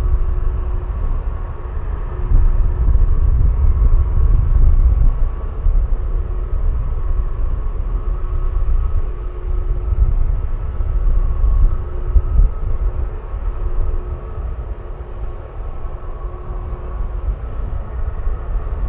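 Airbus A320neo's twin Pratt & Whitney geared turbofan engines running steadily at low power: a deep rumble under a steady hum and a higher whine that swell and fade every couple of seconds.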